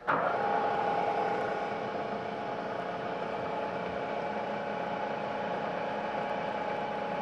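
Milling machine spindle, fitted with a fly cutter, switched on. It starts suddenly and settles into a steady running whine, a little louder in its first second or so.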